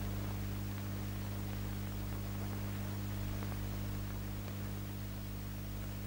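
Steady low electrical hum with an even hiss from an old film soundtrack, with nothing else on top of it.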